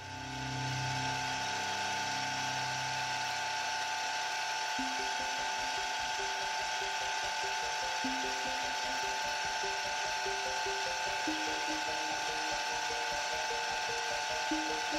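Small bench drill press running up to a steady whine. From about five seconds in, a fine twist bit drills a pin hole through a small metal shaft collar, fed gently to avoid breaking the bit, and a string of short squeaky chirps sounds as it cuts.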